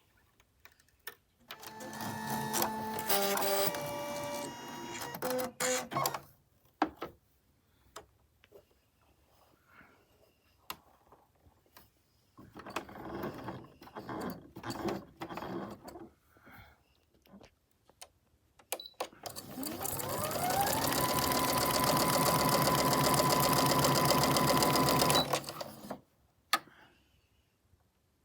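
Electric sewing machine handled with scattered clicks, with a short run early on; later its motor spins up with a rising whine and runs steadily for about five seconds before stopping abruptly.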